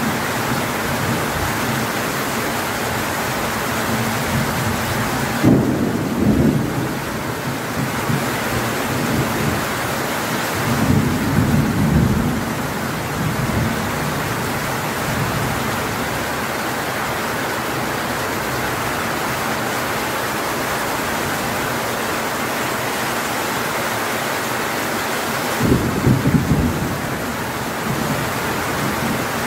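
Heavy rain pouring steadily, with three short low rumbles of thunder about six, eleven and twenty-six seconds in.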